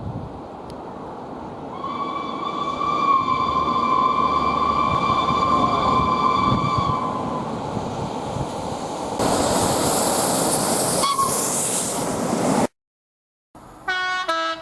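A train's air horn sounds one long, steady high note for about five seconds over the rumble of a passing train. A louder rushing noise follows and cuts off abruptly. After a moment of silence, another horn gives two short notes of different pitch near the end.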